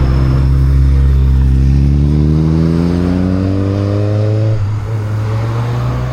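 A motor vehicle's engine rising steadily in pitch as it accelerates, then dropping back about four and a half seconds in as it shifts gear.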